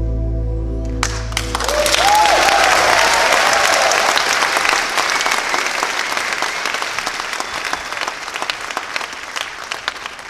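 Audience applause breaking out about a second in as the music's final held chord fades away, with a brief cheer early in the clapping; the applause peaks, then slowly thins out.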